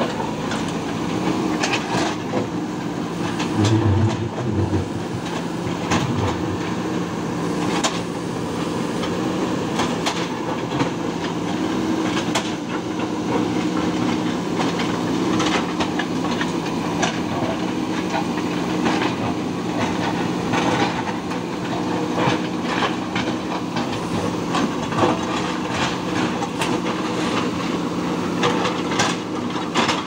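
Diesel engines of two JCB backhoe loaders, one a 3DX, running steadily under load, with many irregular knocks and clanks of concrete and stone striking the buckets. A few deeper thumps come about four and six seconds in.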